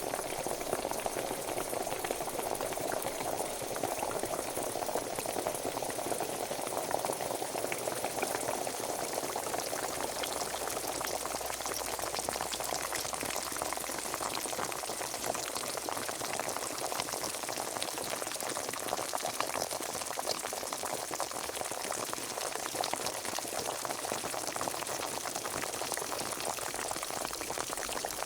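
Pot of water at a rolling boil: a steady dense bubbling and crackling of bursting bubbles.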